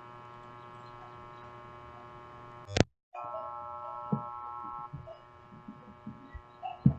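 Steady electrical hum with several even tones, broken by a sharp click and a brief dropout about three seconds in, followed by a louder stretch of hum and a few soft clicks.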